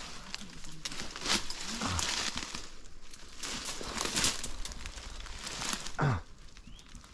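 Brambles and undergrowth rustling and crackling as someone pushes through them on foot, in repeated surges, with a short falling-pitched sound about six seconds in.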